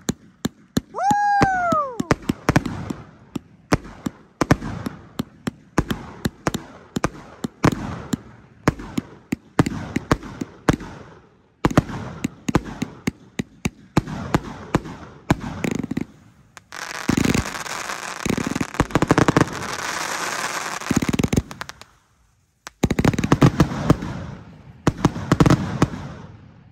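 FTS Sienna 197-shot firework cake firing a rapid barrage of shots and breaks. About a second in, one whistle rises and then falls in pitch. About two-thirds of the way through comes several seconds of dense crackling, then a short pause, more shots, and a sudden stop.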